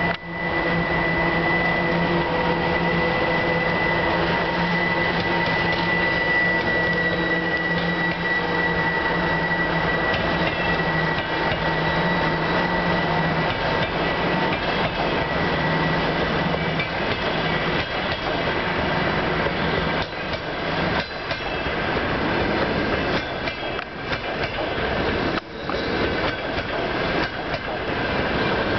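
A 2TE116 twin-section diesel locomotive, its V16 diesel engines working hard as it accelerates, passes with a steady drone and a high whine. After about twenty seconds the engine sound gives way to the rumble of passing passenger carriages and rapid clicks of wheels over rail joints.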